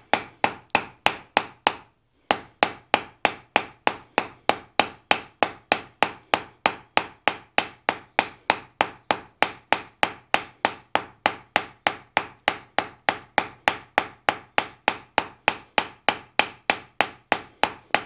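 Hand hammer striking a hot steel bar on an anvil in an even rhythm of about three blows a second, with one short break about two seconds in. The blows are rounding the bar from an octagon to a round section.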